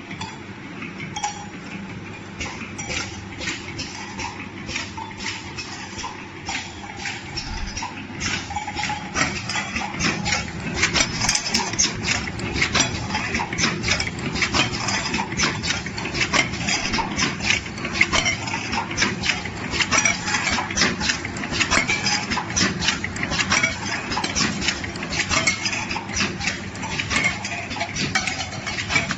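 Can seaming machine running: a steady motor hum under rapid metallic clicking and clinking of cans, which grows louder and busier about nine seconds in.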